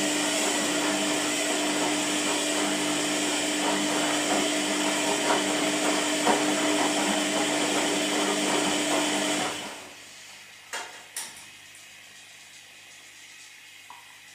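Washing machine motor running with a steady hum and churning noise, stopping after about ten seconds; two short clicks follow in the quieter pause.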